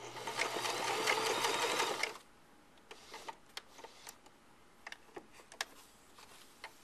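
Baby Lock Maria sewing machine running a quick zigzag in place to stitch a button on, feed dogs lowered, with a steady motor hum under rapid needle strokes; it stops about two seconds in, followed by a few faint clicks.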